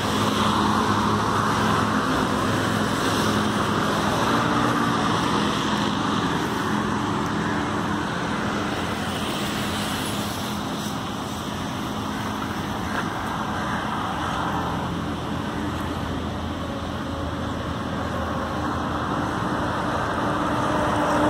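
Road traffic on a busy multi-lane highway: a continuous wash of tyre and engine noise as vehicles pass, swelling louder with a rising engine hum near the end as one draws near.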